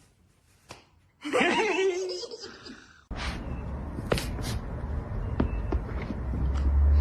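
A person laughing for about two seconds, starting about a second in. It cuts off suddenly and is replaced by a steady low rumble with a few sharp clicks and taps.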